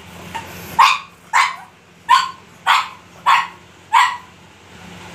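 Black pug puppy barking: six short barks, about one every 0.6 seconds, starting just under a second in. They are demand barks for food, which the owner answers by offering roti.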